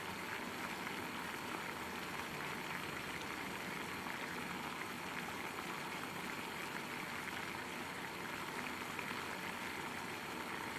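Half a liter of water at a rolling boil in a small open camping kettle over a methanol alcohol stove: a steady bubbling.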